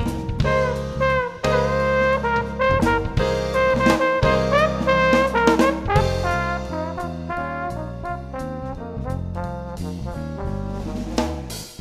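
Background jazz music led by brass horns over a walking bass line.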